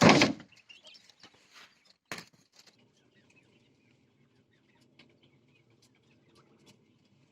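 Jumbo quail in their pen: a loud noisy burst at the start and a sharp click about two seconds in. After that come only faint scattered ticks over a low steady hum.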